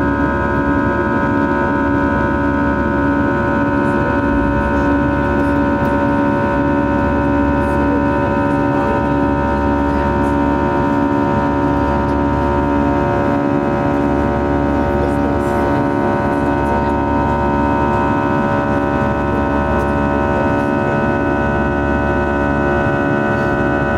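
Airbus A320 jet engines at climb power, heard inside the cabin: a steady drone and rush of air with several steady whining tones held over it.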